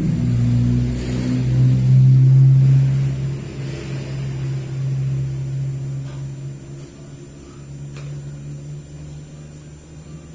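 A motor vehicle engine running with a steady low hum, loudest in the first few seconds and then gradually fading away.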